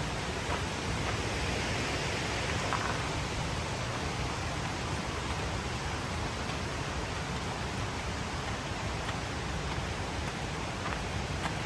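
Steady rushing of flowing water, an even hiss that does not change, with a few faint clicks near the end.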